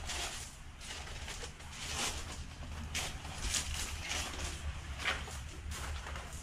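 Footsteps crunching on loose pebbles and cobbles, roughly one step a second, over a steady low rumble.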